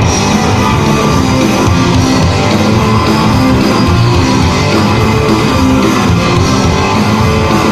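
Live rock band playing an instrumental passage between verses, led by distorted electric guitar over bass and drums.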